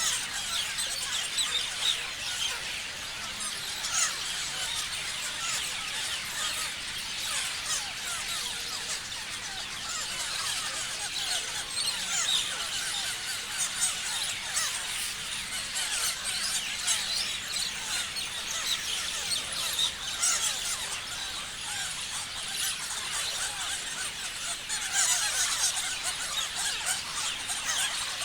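Many parrots chirping and screeching at once: a dense, unbroken chatter of short high overlapping calls, a little louder near the end.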